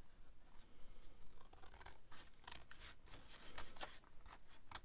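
Scissors cutting through cardstock: a run of faint, irregular snips and scratchy clicks as the blades close along the score line.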